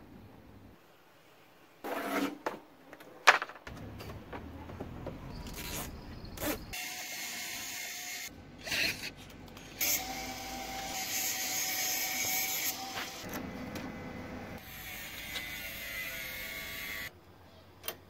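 Hands-on assembly noise from work on a homemade electric car's frame and wiring: clicks, knocks and handling of metal tubing and parts, heard in short edited pieces, with one sharp click about three seconds in.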